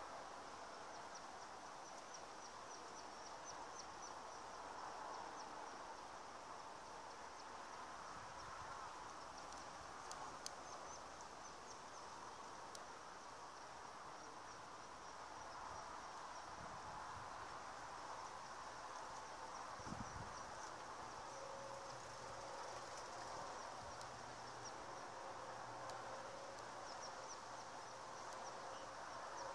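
Faint high-pitched insect chirping in short repeated trills, over a steady low outdoor background.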